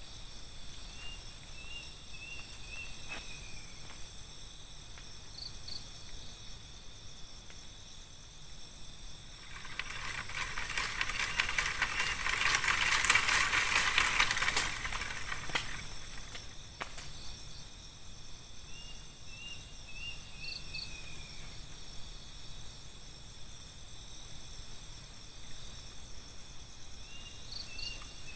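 Night forest insect chorus, a steady high-pitched trilling. About ten seconds in, a louder pulsing insect buzz swells up, peaks and cuts off around sixteen seconds. A short series of falling chirps comes three times: near the start, about two-thirds through and at the end.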